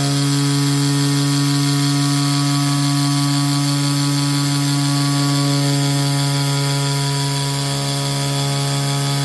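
A CNC digital flatbed cutter running while cutting gasket sheet: a steady, loud machine hum with a strong low pitch.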